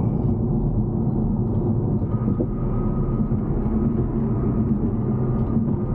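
Steady engine and tyre rumble heard from inside a car's cabin while it is being driven, with a faint thin whine joining about two seconds in.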